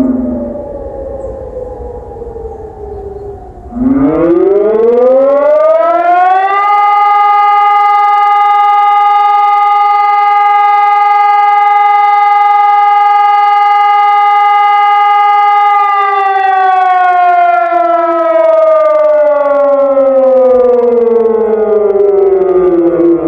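Helin SONUS 1200 civil-defence siren sounding its monthly test signal. A falling tone dies away at the start; about four seconds in, the siren rises in pitch over a few seconds, holds one steady wailing tone for about nine seconds, then slowly falls in pitch again near the end.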